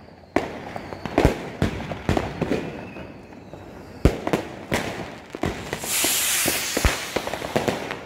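New Year's Eve street fireworks: about ten sharp firecracker and rocket bangs going off one after another. About six seconds in, a loud rushing hiss lasting about a second as a lit rocket launches.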